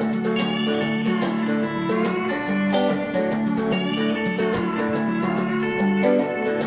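Guitar-led music playing the instrumental opening of a song, with picked notes over a steady rhythm and no singing yet.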